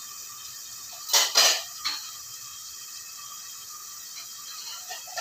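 Kitchenware clattering: two loud sharp clinks about a second in, then a smaller knock just after, as a bowl and utensils are handled while water is being fetched.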